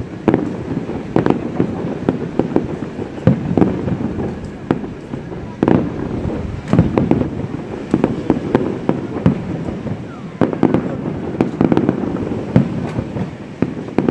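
Fireworks display: aerial shells bursting in a rapid, continuous string of bangs, several a second, with louder booms standing out now and then.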